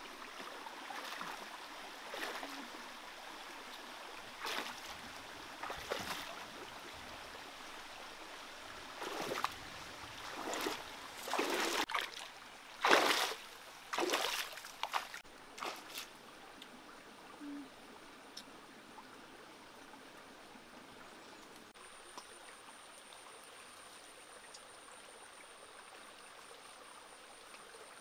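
Shallow rocky stream trickling steadily, with a run of splashing steps from bare feet wading through the water in the middle, the loudest about halfway through.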